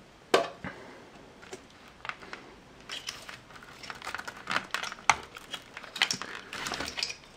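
Hands handling plastic graphics-card power connectors and their cables: a sharp click about a third of a second in, another near five seconds, with scattered small clicks and rustling between.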